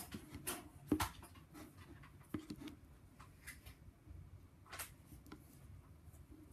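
Silicone spatula stirring thick glue-based slime in a bowl: faint scraping and sticky squelching, with a few sharp knocks of the spatula against the bowl, the loudest about a second in.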